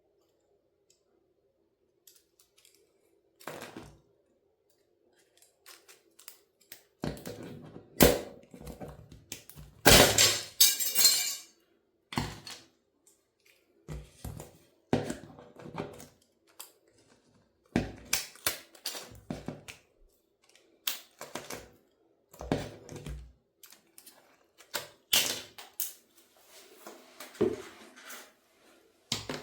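Toy car being crushed. It gives irregular sharp cracks, snaps and knocks as its body gives way, with a longer crunch about ten seconds in.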